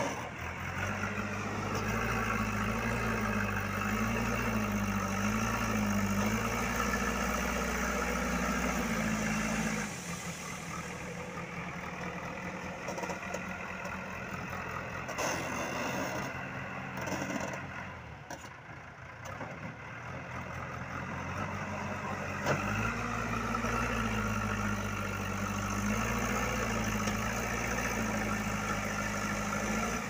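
JCB 3DX backhoe loader's diesel engine running, its pitch wavering up and down as the engine speed changes. It is louder for the first ten seconds and again for the last seven, and quieter in between.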